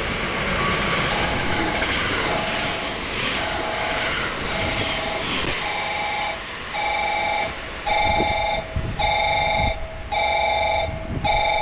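Station platform's electronic warning tone beeping in a steady on-off two-tone pattern, growing louder, alerting that a train is approaching or passing through. Rushing noise of the train runs under it.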